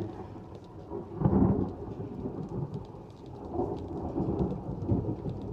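Thunderstorm: thunder rumbling continuously under steady rain, with fine scattered raindrop ticks. The rumble swells loudest a little over a second in, then surges again later.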